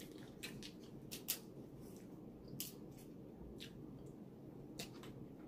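Faint, scattered wet clicks and smacks of eating, about seven in all and irregularly spaced, over a steady low background noise.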